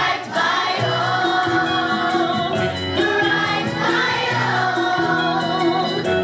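A song: a group of voices singing over an instrumental accompaniment with a steady beat.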